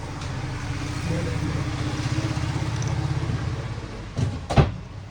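A motor vehicle engine running in the background, swelling and then easing off. Near the end there are two sharp knocks, the second one louder.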